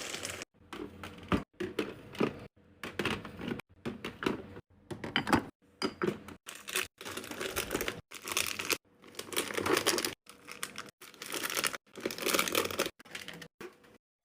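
Plastic packaging crinkling and rustling as items are handled, with light taps and clicks, in short stretches broken by abrupt cuts.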